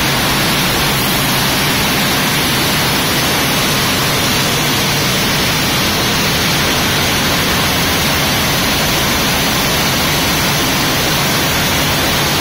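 Steady, loud machinery din of a cotton mill's combing section with a Rieter E 65 comber running alongside: an even, hiss-like noise with no distinct beats.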